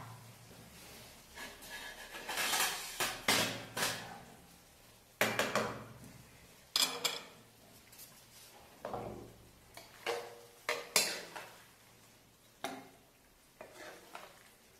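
A series of irregular knocks and clatters of a ceramic serving bowl and a frying pan being handled on a countertop. Toward the end, a wooden spatula scrapes creamy penne from the pan into the bowl.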